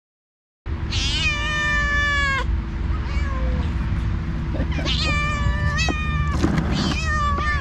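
Two rival cats yowling at each other in a territorial standoff: one long, drawn-out yowl starting about a second in, then a run of shorter yowls near the end, over a steady low background rumble.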